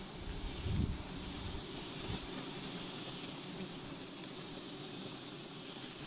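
Steady background hiss, with two soft low bumps, a little under a second in and again at about two seconds, as a coiled rope is handled.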